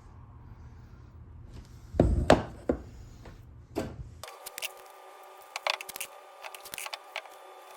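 Wooden handling knocks: a quick cluster of sharp taps about two seconds in and single knocks a little later, over a low hum. Midway the sound changes abruptly to a steady hum with several pitches and scattered small clicks.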